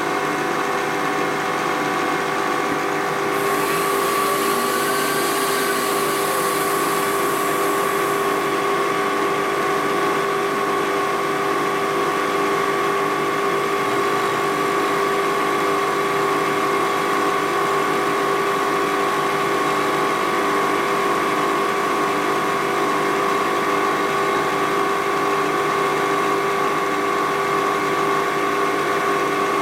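Vertical milling machine running an end mill through an aluminum caliper bracket, a steady hum with a whine. About three seconds in, a high hiss joins for some five seconds.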